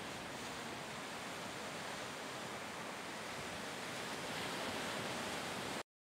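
Sea surf: waves breaking and washing in a steady rush of noise, which cuts off suddenly near the end.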